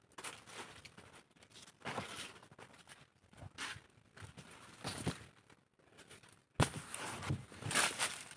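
Footsteps on leaf litter and dry banana leaves rustling and crackling as they brush past, in irregular bursts, loudest near the end.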